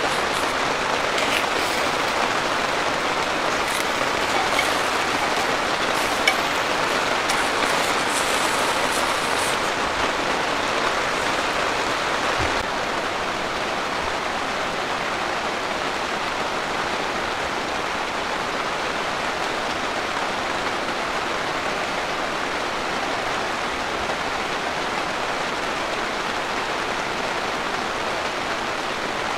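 Heavy rain pouring down on a tent, an even steady hiss that eases slightly after about twelve seconds, with one sharp tap about six seconds in.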